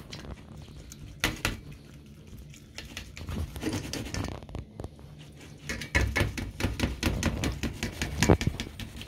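Knife and fork scraping and clicking against a dish while cutting into a rolled roast: irregular short strokes, a few at first, then coming thick and louder in the last few seconds.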